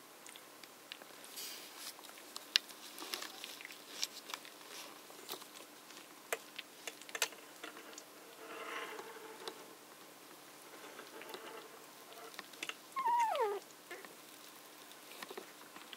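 Newborn Tibetan terrier puppies squirming, with soft scuffling and many small clicks. A faint whimper comes about halfway through, and a short, high puppy squeal sliding down in pitch about 13 seconds in is the loudest sound.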